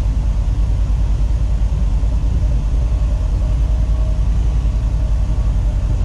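Inside a semi-truck cab at highway speed: the diesel engine and tyres make a steady, loud low drone.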